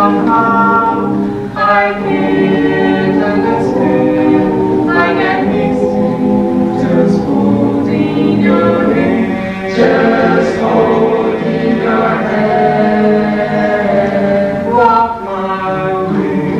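A choir singing a cappella in several voice parts, holding chords, with brief breaks between phrases.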